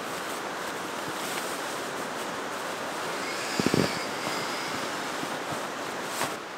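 Steady rushing of fast river water from the rapids alongside. About three and a half seconds in comes a brief cluster of knocks, gear being handled as a packraft is loaded.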